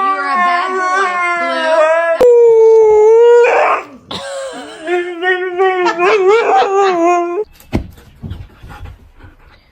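Husky howling back in long, wavering, pitch-bending calls, with one steady held note a little over two seconds in, the loudest part, and a breathy burst just after it. The calls stop about seven and a half seconds in, leaving a few faint taps.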